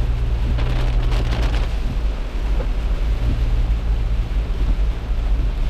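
Car driving on a wet road in the rain: a steady low rumble of engine and tyres with a steady hum. About a second in there is a brief rise of hissing noise.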